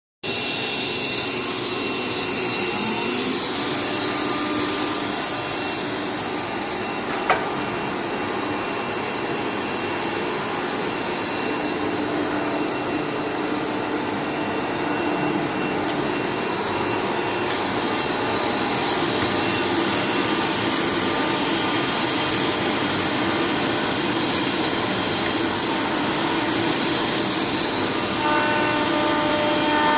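CNC router spindle running steadily as it cuts, a continuous whirring noise with faint steady whines, and a single sharp click about seven seconds in.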